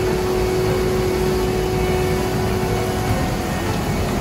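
Diesel engines of a Cat asphalt paver and a dump truck running steadily at close range while the truck's raised bed feeds asphalt into the paver. A steady whine sits over the low rumble and fades out about three seconds in.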